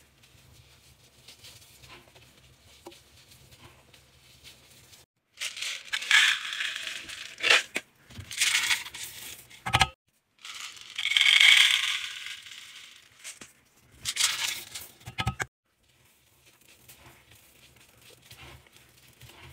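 Gloved hand softly crunching and squeezing powdered laundry detergent in a washing-machine drum. About five seconds in come several loud rattling, pouring bursts from a Lenor in-wash scent booster: its beads tumbling out onto the powder. Each burst cuts off abruptly, and faint crunching of the powder returns near the end.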